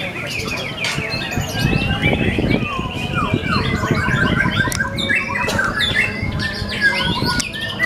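White-rumped shama singing a fast, varied stream of whistles, chirps and rising and falling notes, over a low background rumble.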